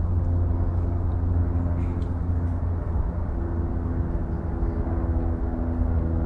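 A steady low mechanical drone, like a distant engine, with a humming pitch. Its upper tone shifts slightly about halfway through.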